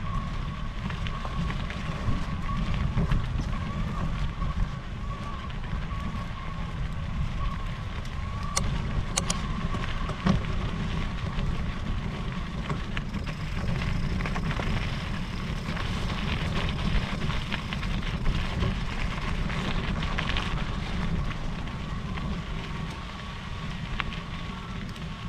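Wind rumbling on the microphone and tyres crackling over a gravel trail as an electric mountain bike is ridden, with a thin steady whine that runs throughout and a few sharp clicks.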